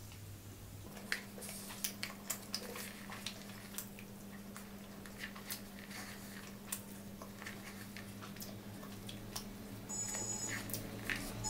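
Close-up eating sounds: a wooden spoon scraping and tapping inside a paperboard food bucket, mixed with chewing and lip smacks. They come as many irregular sharp clicks and taps over a low steady hum.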